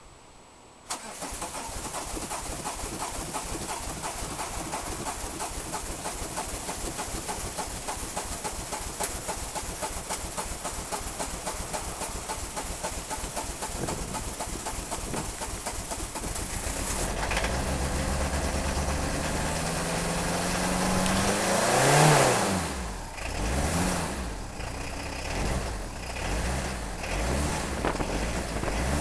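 Peugeot 306 XLdt's turbo diesel engine cranking on the starter motor with an even rhythm for about sixteen seconds, then catching; the revs climb slowly to a peak about five seconds later and fall back, and it runs unevenly afterwards. A hard cold start caused by two dead glow plugs.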